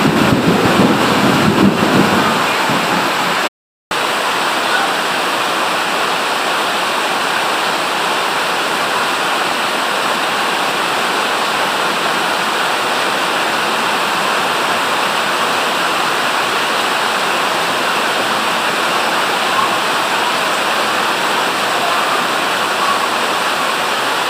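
Heavy rain pouring steadily, a dense even hiss. A low rumble with splashing in the first two seconds, then the sound cuts out completely for a moment about three and a half seconds in.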